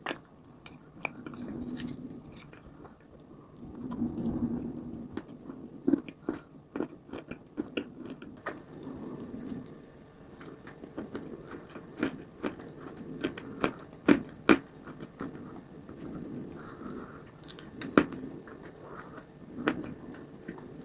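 Close-up chewing of wet clay paste: irregular sharp crunches and clicks over soft, wet squishing, with a few louder crunches in the second half.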